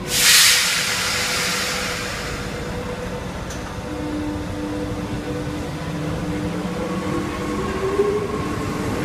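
Paris Métro train moving out along the platform. A loud burst of air hiss comes right at the start and fades over a couple of seconds. Then a steady motor tone sets in and rises briefly near the end.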